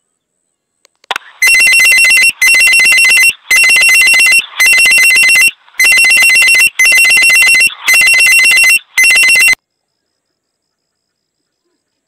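Electronic ringing sound effect, like a telephone ringer, sounded eight times in a row. Each ring lasts just under a second with a short gap between rings, and the ringing stops sharply a couple of seconds before the end.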